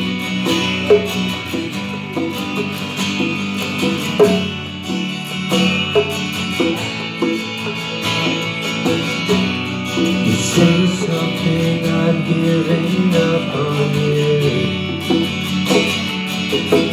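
Acoustic guitar played live, picked and strummed in a steady rhythm, with conga drums played by hand alongside it.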